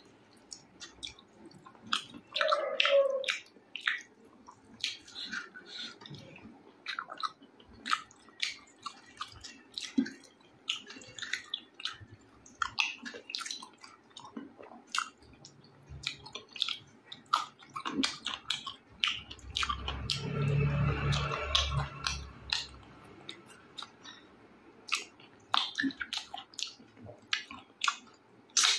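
Close-miked chewing and wet mouth sounds of a person eating rice and chicken curry: a steady run of short smacks and clicks. About twenty seconds in there is a louder stretch of a couple of seconds with a low rumble.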